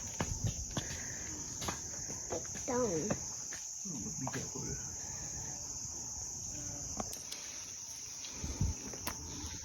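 Insects droning steadily at a high pitch, with scattered footsteps and scuffs on rock.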